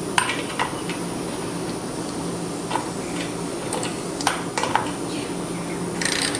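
Light metal clicks and clinks as a lawn mower carburetor's float bowl and main jet are handled and threaded back together by hand, with a short scraping rub about six seconds in. A steady low hum sits underneath.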